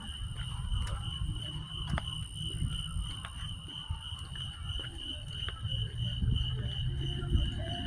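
A steady high-pitched tone, rapidly pulsing like a trill, holds throughout over a low rumble, with scattered sharp clicks.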